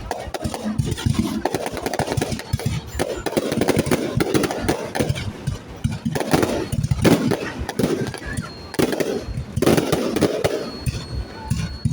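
Aerial fireworks bursting and crackling in quick, continuous succession, with a crowd's voices underneath.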